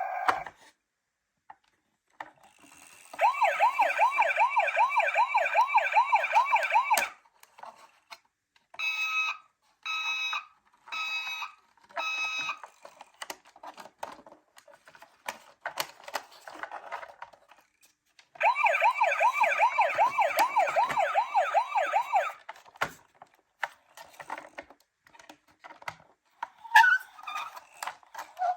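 Toy ambulance minicar's electronic siren: a fast warbling wail for about four seconds, then four short separate tones, then the fast warble again for about four seconds. Small plastic clicks and rattles fall in between.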